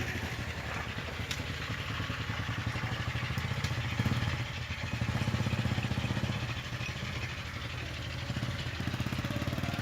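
Motorcycle engine running steadily, a little louder for a couple of seconds in the middle.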